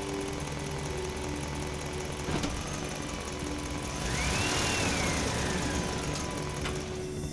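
Excavator's diesel engine running steadily, with a whine that rises and then slowly falls in pitch about four seconds in, and a sharp click near the middle.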